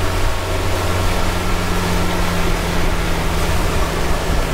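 Yamaha outboard motor on a bay boat running under way, a steady drone with a rush of wind and water. The engine's pitch steps up about a second in.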